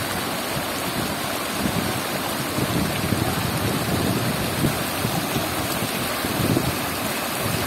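Cyclone tidal-surge floodwater rushing and churning in foaming waves over a road edge: a steady, loud rush of water with uneven surges.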